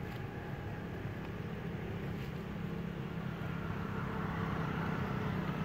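A steady engine hum, like a motor vehicle running close by, growing slightly louder toward the end.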